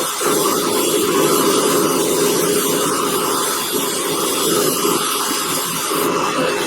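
Bench wheel motor running steadily while small steel pliers are held against the spinning wheel to clean the rust off them.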